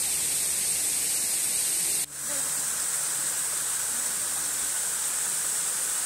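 Steady rush of a small waterfall and stream, water spilling over rock ledges. It cuts out for an instant about two seconds in, then resumes.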